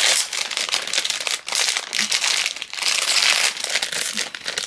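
Plastic snack bag being pulled and torn open by hand, crinkling and crackling the whole time.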